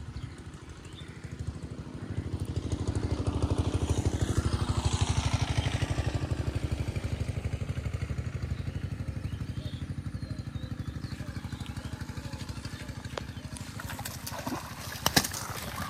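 A small-engined motor vehicle passing by: its engine grows louder over a couple of seconds, drops in pitch as it goes past, then slowly fades. A few sharp splashes or knocks near the end.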